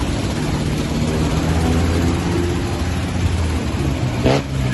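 An engine running steadily with a low hum, and one brief sharp sound near the end.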